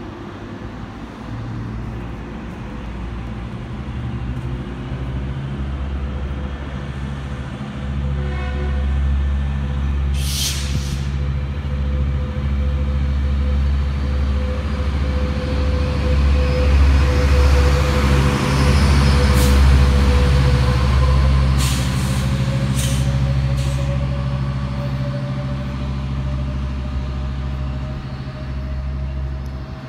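Metrolink commuter train pulling out: the diesel locomotive engine drones low and grows louder through the middle, and a steady whine rises in pitch near the end. Several short, sharp air hisses cut in along the way, one about a third of the way in and a cluster past the middle.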